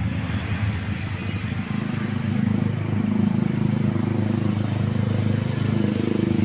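A motor vehicle's engine running steadily, growing louder about two and a half seconds in.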